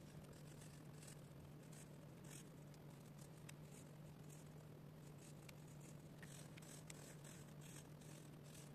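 Marker scribbling on a paper challenge card as small circles are coloured in: a string of faint, short scratchy strokes, irregular in rhythm, over a steady low hum.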